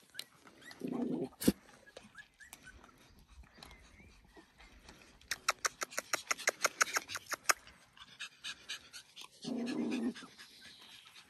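Papillon puppies and small dogs at play: two short low growls, about a second in and near the end, and a run of fast, rhythmic panting for a couple of seconds through the middle.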